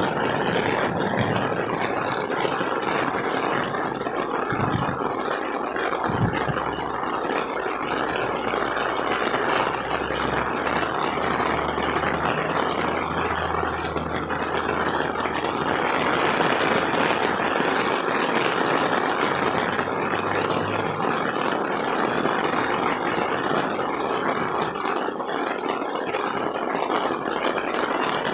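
Heavy rain falling steadily, an even hiss of downpour. A low rumble comes in for about ten seconds in the middle.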